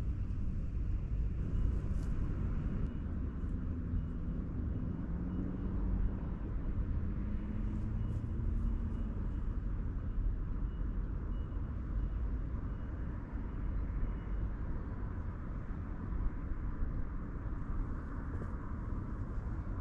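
Steady low outdoor rumble, with a faint hum coming and going between about five and nine seconds in.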